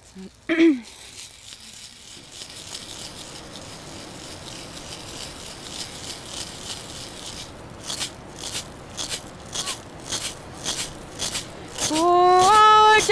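A turtle-shell rattle shaken in a steady beat, about two to three shakes a second, starting about halfway through; near the end a woman's voice comes in singing over it, holding long even notes.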